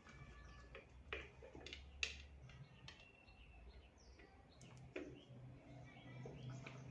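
Near silence broken by a few faint, sharp clicks and knocks, the sharpest about two seconds in, as the fan housing's parts and nuts are handled. Faint bird chirps and a low hum sit underneath.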